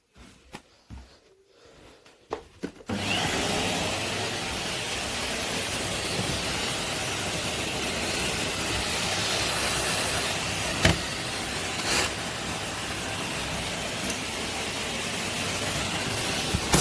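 A few light knocks, then a Henry canister vacuum cleaner starts up about three seconds in and runs steadily, with a couple of sharp clicks later on.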